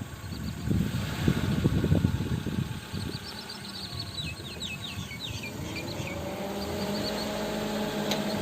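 Car travelling with low rumbling and knocking road noise. Around the middle a bird gives a quick run of about eight chirps, each falling in pitch, and in the last few seconds a steady engine note rises and holds.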